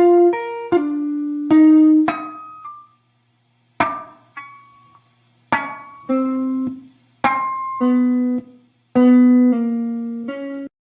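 Guitar playing a lick slowly, one note at a time, each note plucked and left to ring out, with short pauses between phrases.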